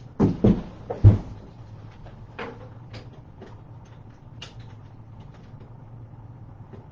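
Parts and tools being handled during bicycle assembly: a few loud clunks and knocks in the first second or so, then scattered light taps and clicks.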